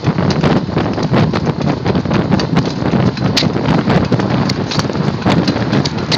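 A bicycle being ridden, making an irregular clicking and ticking of a few sharp clicks a second over wind and road rush on the microphone. This is the unidentified noise that the rider is trying to trace.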